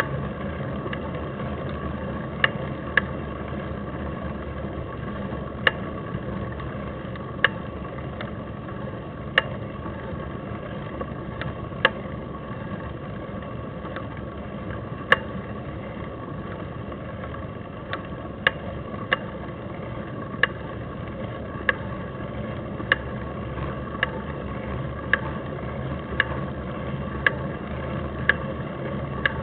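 Steady rumble of wind and rolling noise from a mountain bike ride up a paved road, heard on a microphone travelling on the bike. Sharp clicks come every second or two, more often in the second half.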